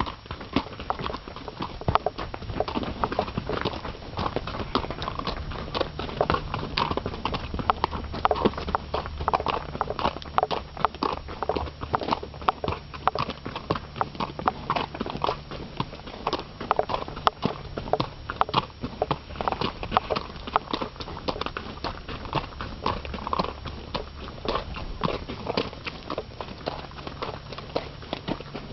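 Horse's hooves clip-clopping steadily on a mountain fire road, several footfalls a second.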